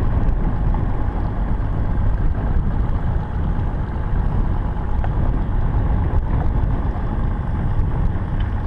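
Boat motor running steadily, a low, even rumble with no change in speed.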